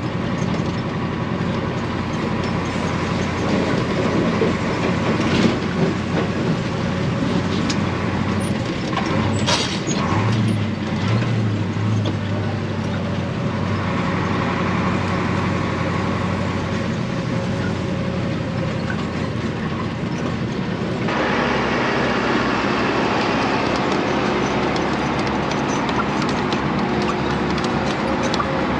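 Ford 8000 truck's Caterpillar diesel engine running while the truck drives, heard from inside the cab, with scattered rattles and ticks. About three-quarters of the way in the engine note changes and gets a little louder.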